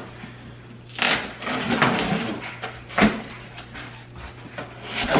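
A shipping box being opened by hand: scraping and rustling of the packaging, a sharp knock about three seconds in, and more handling noise near the end.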